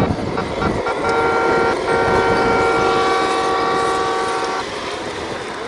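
Radio-controlled construction machines at work, their electric motors giving off a steady multi-tone whine. The whine drops out briefly twice and stops about four and a half seconds in, over a rough low rumble of wind and dirt.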